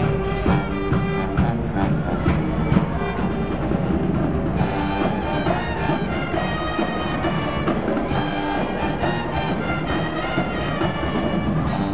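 College pep band playing a tune on brass (sousaphones, trumpets, trombones, saxophones) over a marching drum line. The sound changes about four and a half seconds in.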